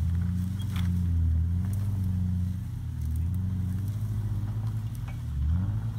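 Jeep Wrangler engine working at low speed as the Jeep crawls up a rock pile, its pitch rising and falling with the throttle, with a short rev near the end.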